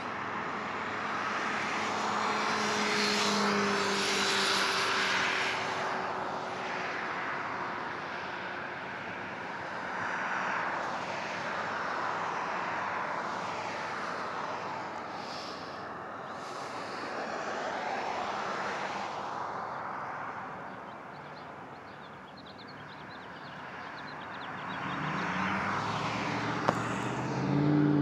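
Aircraft engine noise from a plane in flight: a continuous rush with slow, sweeping shifts in tone and a faint hum that glides down in pitch over the first few seconds. It is loudest a few seconds in, fades about three-quarters of the way through, then swells again near the end.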